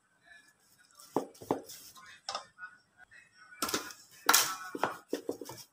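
Plastic paddle scraping and knocking against a pot while stirring a thick, sticky mash of grated taro and coconut, in irregular strokes that grow busier in the second half.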